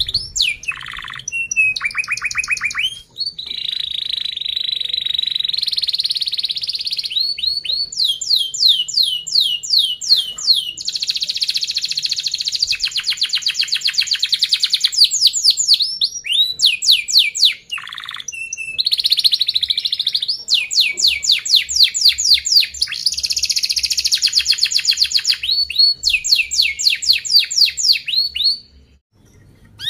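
Domestic canary singing a long, near-continuous song of tight, rapid rolls and trills mixed with series of quick down-sweeping chirps, breaking off briefly a few times and stopping shortly before the end.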